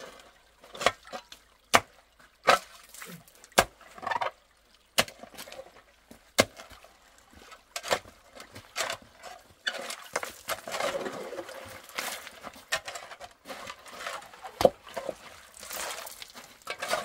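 Metal shovel digging in a shallow, stony stream bed: irregular sharp clanks as the blade strikes stones, with longer stretches of scraping through gravel and water about ten seconds in and again near the end.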